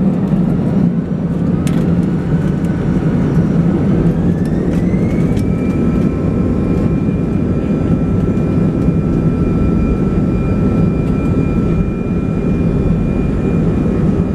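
Airbus A320 jet engines spooling up to take-off thrust, heard from inside the cabin: a loud, steady rumble with an engine whine that rises in pitch over the first five seconds or so and then holds steady as the take-off roll begins.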